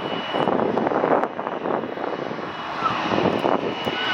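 Bombardier Global 7500's twin GE Passport turbofan engines running: a steady high whine over a continuous rush of jet noise.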